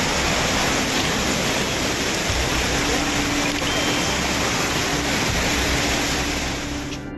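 Loud, steady rush of water, which cuts off abruptly near the end.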